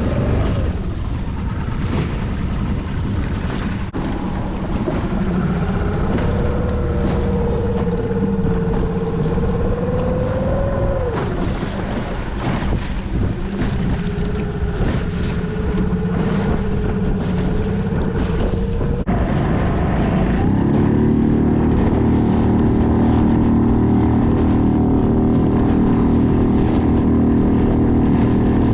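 Motorboat engine running over wind and water noise, its pitch wavering; about twenty seconds in it speeds up with a rising whine and holds at a higher, louder, steady drone.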